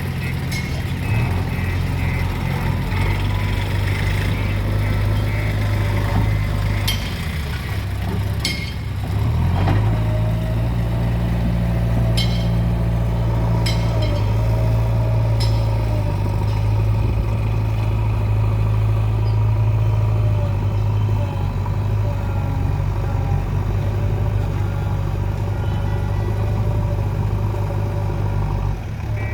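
The 49 hp diesel engine of a JCB 3DX backhoe loader runs steadily under work. It drops lower for a couple of seconds, then picks up again about ten seconds in, with a wavering whine over it. Several sharp metallic clanks ring out during the first half.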